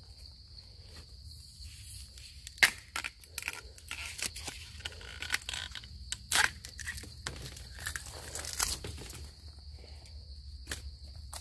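Dry bamboo leaves and twigs crackling and snapping underfoot and against the body as someone pushes through a bamboo thicket, with sharp snaps about 3 s and 6 s in. A steady high insect drone runs underneath.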